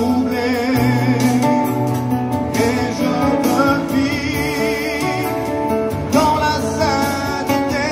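A French hymn performed live and amplified through a loudspeaker: a man singing into a microphone over guitar accompaniment, holding long notes with a wavering vibrato.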